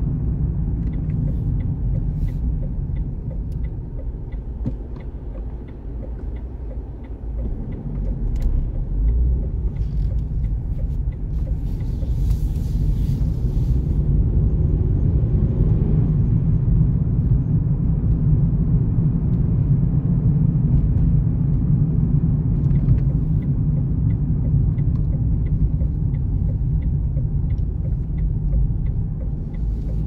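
A car driving on town roads: a steady low rumble of engine and tyres on the road surface. It eases off about four to seven seconds in and then grows louder again. A brief hiss comes about twelve seconds in.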